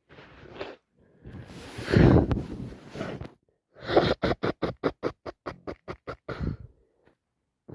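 A person with a heavy head cold blowing her congested nose: a short breath in, a long loud blow about two seconds in, then a rapid run of short fluttering blasts, about five a second.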